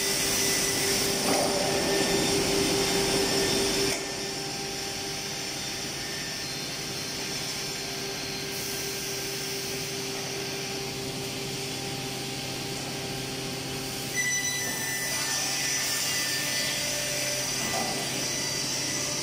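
Woodworking machinery of a solid wood composite door production line running: a steady machine hum, whine and hiss. It is louder at first, drops about four seconds in and rises again about fourteen seconds in.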